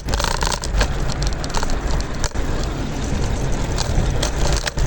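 Scooter rolling over rough pavement: a steady low rumble from the wheels on the road, with frequent rattling clicks and knocks.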